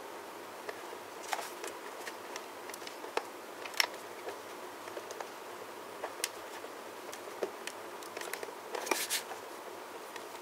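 Scattered light clicks and taps from plastic packaging and parts being handled during an unboxing, with a brief crackly rustle about nine seconds in.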